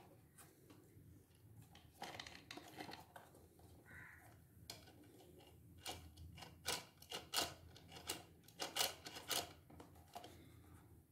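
Light plastic clicks and knocks as a 1/14-scale plastic RC police car is handled and turned over in the hands. The knocks come in a quick cluster in the second half.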